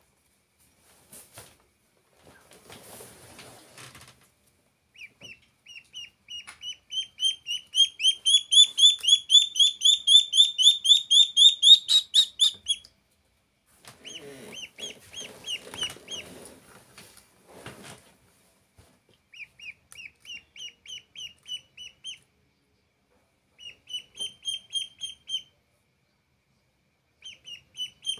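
A duckling peeping in quick runs of short, high calls, several a second. The longest and loudest run comes a quarter to halfway in, followed by shorter bouts with pauses between them. Soft scuffs and taps sound near the start and again in the middle.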